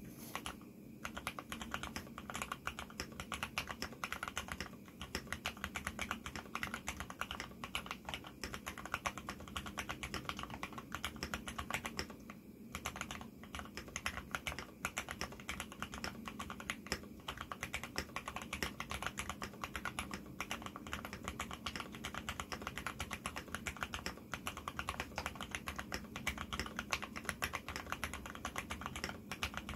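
Continuous fast typing on an AR87 mechanical keyboard with lubed Cherry MX Black linear switches, 70 g springs, switch films and silicone dampening foam: a steady stream of keystrokes, with a short pause about twelve seconds in.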